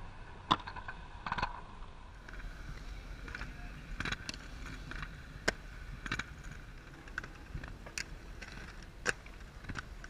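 Inline skate wheels rolling on concrete with a steady low rumble, broken by about a dozen sharp clacks and knocks from skates landing and striking the concrete. The loudest comes about half a second in, as a skater lands a jump.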